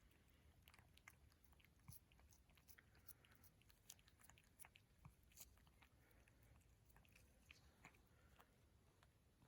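A cat eating, with faint, irregular small clicks of chewing, several a second.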